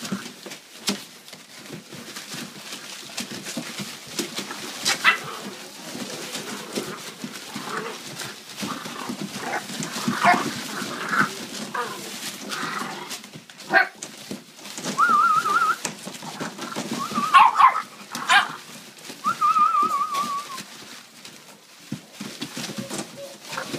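A litter of young puppies yipping and whimpering, with short yelps scattered throughout and two long, wavering whines in the second half, over the rustle of their shredded-paper bedding.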